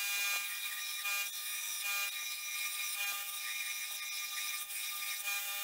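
Belt grinder running with a steady whine, its abrasive belt grinding the teeth off an annealed steel farrier's rasp.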